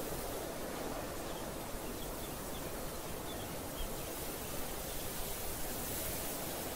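Steady rushing outdoor noise, with a few faint, short high chirps between about one and four seconds in.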